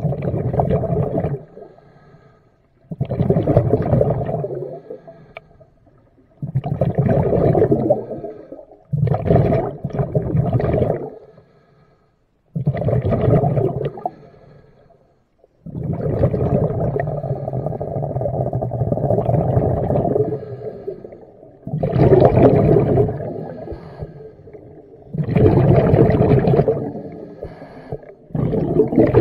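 Scuba diver's exhaled air bubbling out of the regulator underwater, a rumbling burst of bubbles every few seconds with quiet gaps between breaths, and one longer run of bubbling of about five seconds past the middle.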